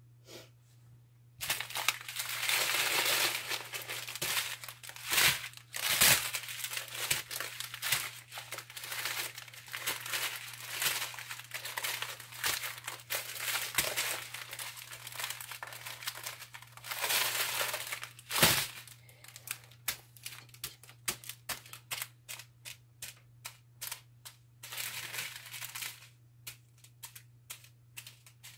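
Small plastic bags of diamond painting drills crinkling and rustling as they are picked up and set down one after another, with light taps and clicks. It starts about a second and a half in and thins to scattered clicks near the end.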